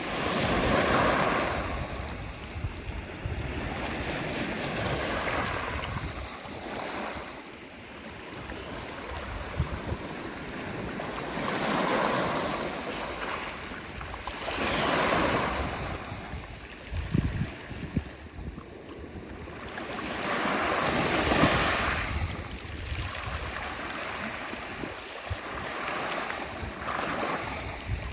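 Sea waves breaking and washing up the shore in slow surges every few seconds, each swelling and then fading back.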